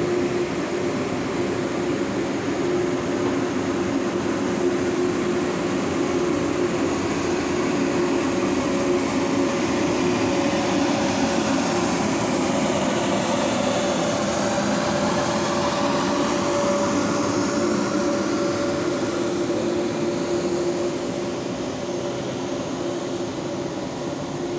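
Frecciarossa 1000 (ETR 400) high-speed electric train running slowly past at close range: a steady hum of electrical tones over the rumble of the cars, with a high whine that bends up and down in pitch around the middle. The sound eases slightly near the end as the last cars go by.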